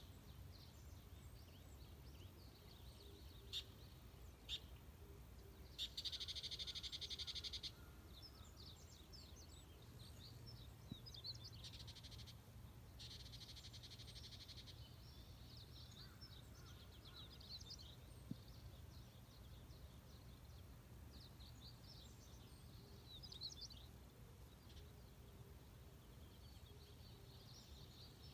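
Faint countryside ambience: small birds calling in quick high chirps, with two longer rapid trills, over a steady low background rumble.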